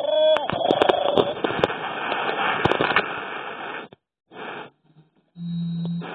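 Hatchimal electronic toy sounding through its small speaker: a brief chirpy, gliding electronic call at the start, then about four seconds of crackly hiss full of sharp clicks, followed by two shorter noisy bursts, the later one with a steady low hum.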